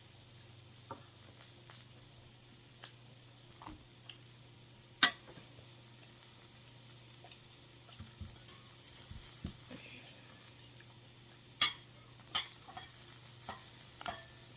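Utensils clicking and knocking against dishes, a few scattered strikes with the loudest about five seconds in and a cluster near the end, over a faint steady hum and a light sizzle.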